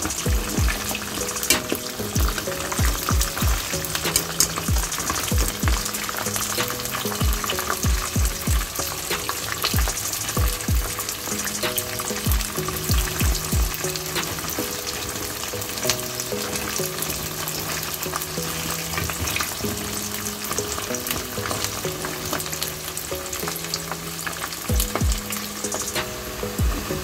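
Cireng, tapioca-dough fritters, sizzling steadily as they fry in hot oil, under background music with a melody and a regular beat.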